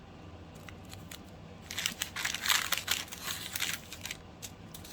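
Packaging crinkling and rustling as it is handled, in a busy burst of about two seconds in the middle.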